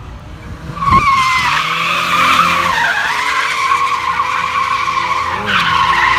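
A car's tyres squealing in a long, sustained screech as it drifts, starting about a second in. The engine runs underneath, its pitch wavering.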